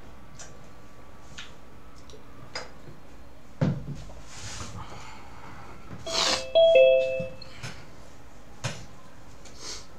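A short two-note chime, the second note lower, sounds about two-thirds of the way through. Around it are scattered light clicks and a dull thump a little after three and a half seconds.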